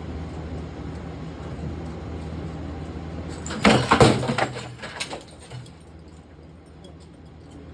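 Harbor Breeze Barnstaple Bay ceiling fan running at top speed with a steady low hum. About three and a half seconds in, something thrown into the spinning blades hits them with a loud clattering crash that lasts over a second. The hum then drops away.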